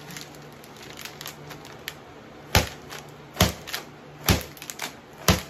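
Crinkly plastic snack bag crackling sharply four times, about a second apart, with small crinkles in between, as it is squeezed hard in a failed attempt to pop it open.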